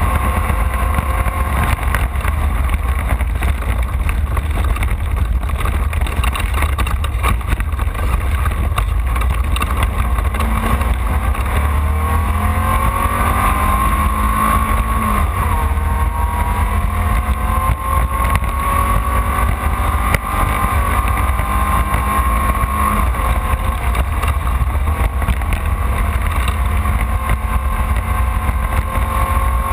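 Off-road race car's engine running hard at speed over a heavy, constant low rumble. About halfway through, its pitch climbs for a few seconds and drops suddenly, like a gear change or lift off the throttle, then rises slowly again.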